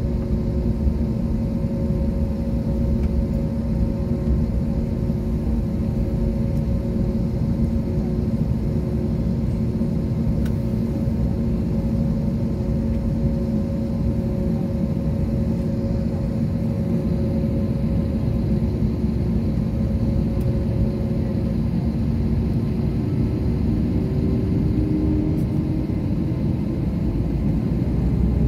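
Jet airliner's engines idling, heard inside the cabin while waiting to take off: a steady low rumble with a few held hum tones. After about twenty seconds one tone fades and another rises slightly.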